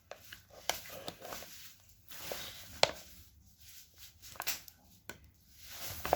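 Irregular sharp clicks and knocks with rustling in between, from items and packaging being handled while a parcel is unpacked; the loudest knock comes a little under three seconds in.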